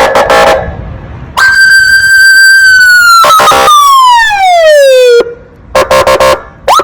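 Electronic police siren cycling through its sound patterns: a fast pulsing two-tone warble, then a long steady tone that slides down in pitch and stops abruptly, then the fast pulsing again with short rising whoops near the end.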